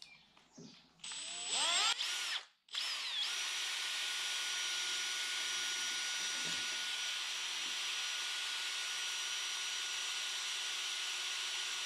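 Drill set to slow, spinning a paint-stirrer paddle in a can of paint. It starts about a second in, revving up and down a few times, stops briefly, then runs at a steady speed.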